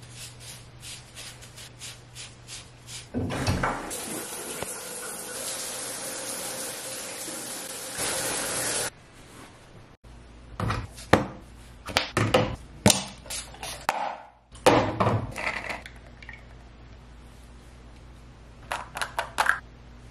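Quick scratchy strokes of a stiff-bristled dry body brush on skin, then water running steadily for several seconds and cutting off suddenly, followed by a string of sharp knocks and clatters and a few light clinks near the end.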